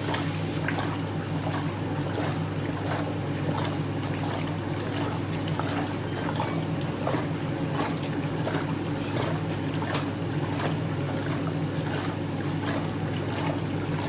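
Hotpoint Supermatic De Luxe 9414 twin tub washing: the wash motor runs with a steady hum while the impeller churns the water in the tub, splashing and sloshing about twice a second.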